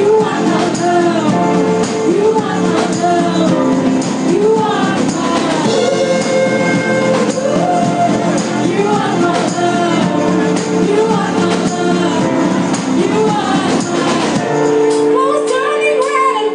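Live band playing a song with a woman singing lead, over drum kit and keyboard. About fourteen and a half seconds in the drums thin out and held chords ring under the voice.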